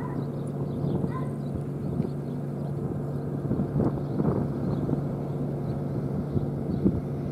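Outdoor ambience: a steady low hum with a light wind haze, broken by a few soft knocks about four seconds in and again near the end.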